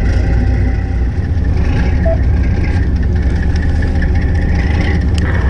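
Fishing boat's engine running steadily at low speed, a loud low hum under a haze of wind and water noise. There is a single light click about five seconds in.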